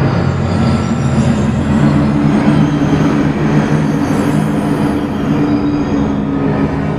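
Ambient electronic soundscape: a steady, dense rumble with sustained low drone tones, which shift up to a higher set about two seconds in.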